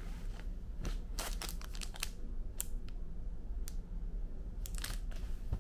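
Clear plastic wrapping of a disposable toothbrush-and-toothpaste set crinkling as it is handled, in short scattered crackles, over a steady low hum.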